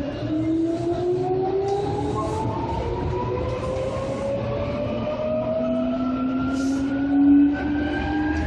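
Seibu 2000 series electric train accelerating, its traction motor and gear whine rising steadily in pitch over a steady low rumble of wheels on rail.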